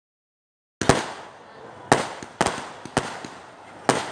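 Fireworks exploding: a run of loud, sharp bangs that begins about a second in and comes every half second to a second, each one trailing off as it dies away.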